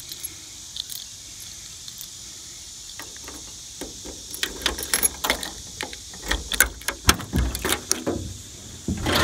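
Keys jangling and clicking in the trunk lock of a 1988 Chrysler Fifth Avenue as the key is worked, with a quick run of rattles and clicks from about three seconds in. About seven seconds in comes a heavier clunk as the trunk latch releases.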